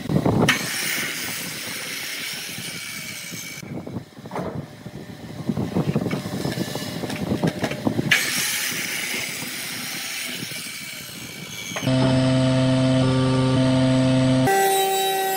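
Power mitre saw cutting through a thick, weathered wooden board, in two stretches of sawing. Near the end, a table saw's motor running with a steady hum.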